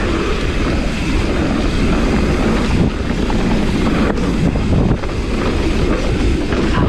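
Mountain bike descending a dirt trail at speed: wind buffeting the microphone over a steady low rumble of knobby tyres and the rattling bike, with a couple of sharp knocks a little past the middle.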